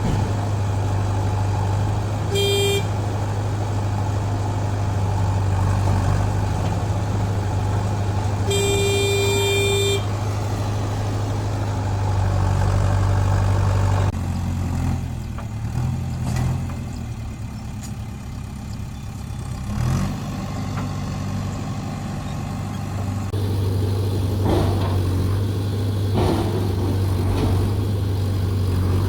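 Heavy diesel engines running steadily while a vehicle horn sounds twice: a short toot about two seconds in and a longer blast about nine seconds in. Midway the engine note drops and wavers for several seconds, then settles back to a steady run.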